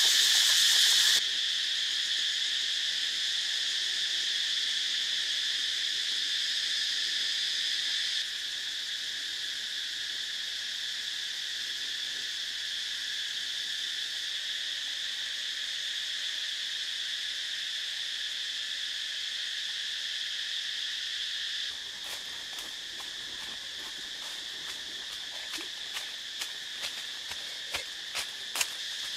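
Steady, high-pitched insect chorus drone, stepping down in level a few times. In the last several seconds light crackling clicks sound over it.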